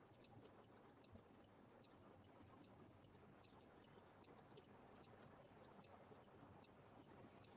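Car turn-signal indicator ticking steadily, about two and a half clicks a second, faint over a low hum of road noise in the cabin.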